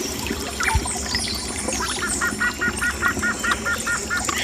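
Forest stream water running steadily while birds chirp. About two seconds in, a bird gives a fast series of about a dozen calls, roughly eight a second.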